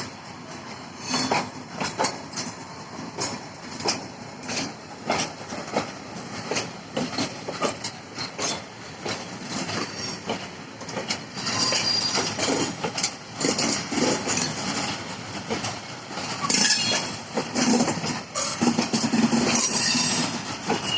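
Loaded Eas-z open coal wagons rolling past, their wheels clacking over the rail joints again and again. Wheels squeal briefly in the second half.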